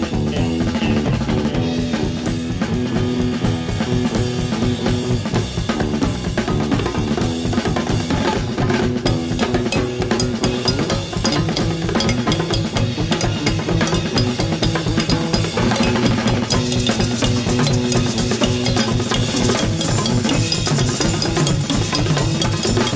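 Drum kit playing a busy percussion break, snare and bass drum hitting densely over bass and other instruments, in a 1968 psychedelic rock recording; no vocals.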